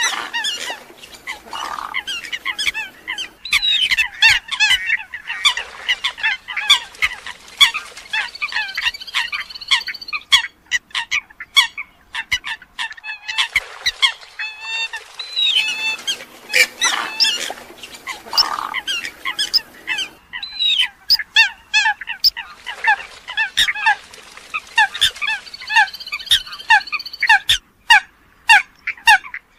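Eurasian coots calling: a dense, continuous run of short, sharp honking and popping calls from several birds. The same sequence repeats after about 16 seconds, as in a looped recording.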